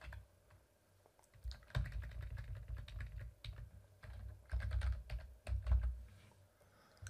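Computer keyboard typing in short bursts of key clicks with a pause about a second in, as a word is deleted and a new one typed.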